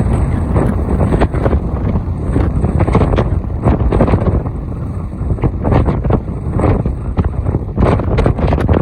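Heavy wind buffeting the microphone: a loud, gusty rumble with constant crackling hits.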